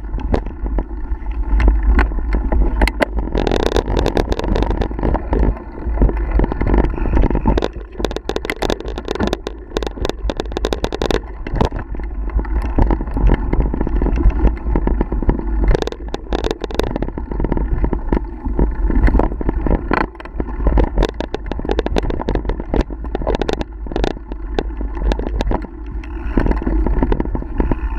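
Mountain bike riding fast down a rough dirt singletrack, heard from a camera mounted on the bike: wind buffets the microphone steadily, and the bike and its mount rattle and knock over roots and rocks.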